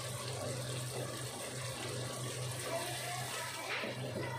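Ketchup, soy sauce and brown sugar barbecue sauce simmering in a pot on a gas stove: a steady crackling, bubbling hiss over a steady low hum.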